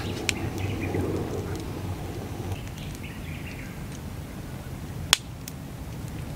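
Wood fire burning in a fire pit: the steady rush of flames with a few sharp crackles of burning logs, the loudest pop about five seconds in.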